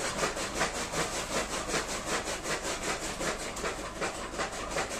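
Electric-motor-driven chaff cutter (toka) chopping green fodder stalks as they are fed in, its blades slicing in a rapid, even rhythm of cuts.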